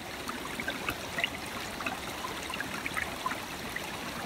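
Water swirling and sloshing steadily in a plastic water bottle as a SteriPen UV purifier is stirred through it, with faint scattered clicks of the pen against the bottle.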